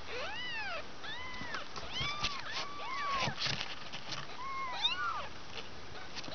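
Several two-week-old kittens mewing: short, thin, high mews that rise and fall in pitch, coming one after another and often overlapping.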